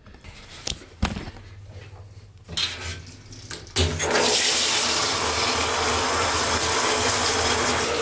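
After a few soft knocks, water starts running about four seconds in: a steady spray from a hand shower splashing onto a mouse pad in a bathtub.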